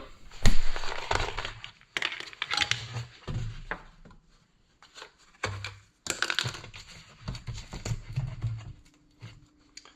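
Hands working loose the washer fluid reservoir and pump under a truck's hood: irregular clicks, knocks and scraping of plastic parts, with a few dull thuds.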